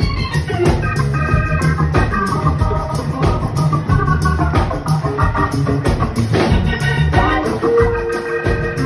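Hammond organ solo played through a Leslie speaker, with the band's bass and drums keeping a steady funk beat underneath; near the end one note is held.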